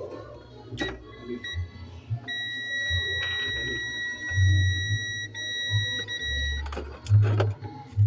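Digital multimeter's continuity beeper giving one steady high beep lasting about four seconds, starting about two seconds in, as the probes read near-zero resistance. A few sharp clicks and a low, thumping background beat are also heard.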